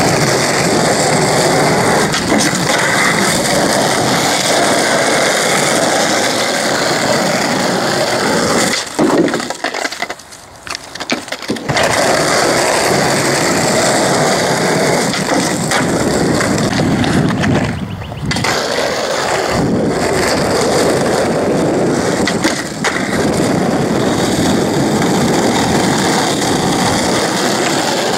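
Skateboard wheels rolling over rough asphalt, a steady noise that drops away briefly twice, once about a third of the way through and again past halfway.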